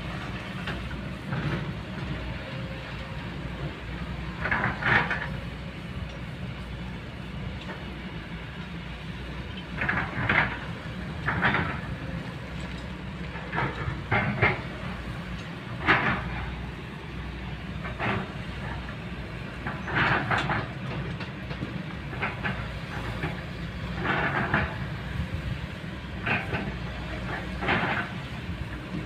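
Kobelco long-reach excavator's diesel engine running steadily under load as the boom and bucket work, with about ten short, sharper bursts of noise at irregular intervals.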